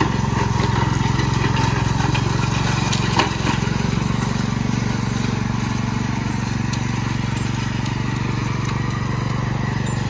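Small red riding lawn mower's engine running steadily as it mows through tall grass, with one short sharp crack about three seconds in.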